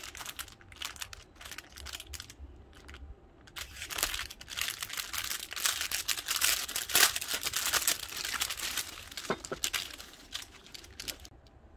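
Clear plastic packaging of an embroidery kit crinkling as hands open and handle it: a run of sharp crackles that is busiest in the middle and dies away near the end.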